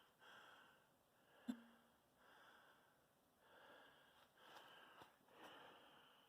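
Faint breathing of a person close to the microphone, about one breath a second, with a single sharp click about a second and a half in.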